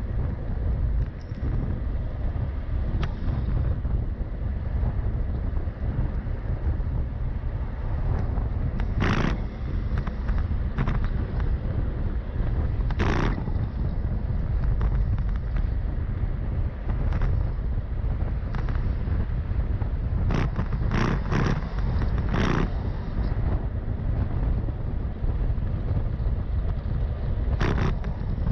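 Wind buffeting a moving microphone in a steady low rumble, broken a few times by short sharp bursts of noise, several of them close together about two-thirds of the way through.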